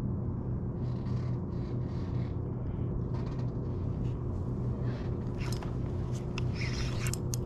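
A motor running steadily: an even low hum with a low rumble under it, and a few sharp clicks near the end.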